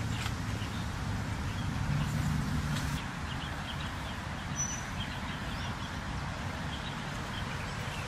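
Outdoor ambience of a steady low rumble, a little louder for a second or so about two seconds in, with many faint, short bird chirps scattered through it.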